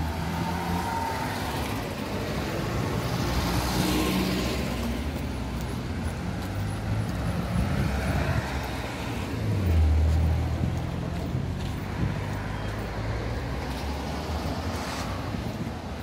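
Street traffic: cars driving past with engines running, one passing loudest about ten seconds in.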